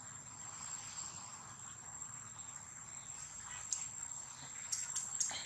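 Insects drone in one steady, high-pitched tone, with a few faint clicks and rustles in the last couple of seconds.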